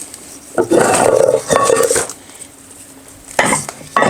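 Weights being loaded into a plastic rolling toolbox: metal clanking and knocking in a burst lasting over a second from about half a second in, then shorter knocks near the end.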